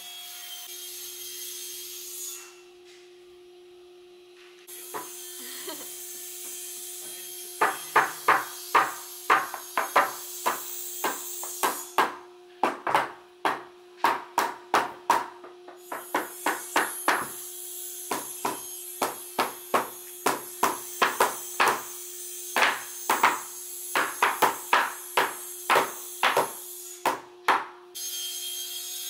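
A mallet knocking the wooden joints of a bookshelf carcass together, sharp wooden taps two or three a second in uneven runs, starting about eight seconds in and stopping shortly before the end. A steady low hum continues underneath.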